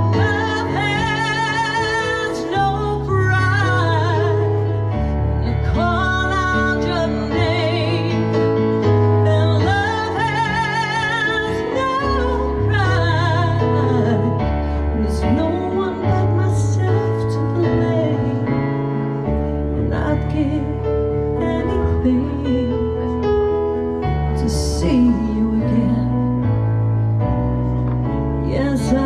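A woman singing a song, holding long notes with vibrato over sustained instrumental chords and a bass line that moves every second or two.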